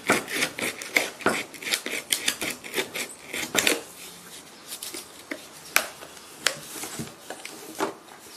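Kitchen knife sawing and scraping through the thick plastic of a bleach bottle moulded around a set cement vase, in quick rasping strokes at first, then a few sharp snaps and cracks as the cut plastic is pried and peeled off the cement.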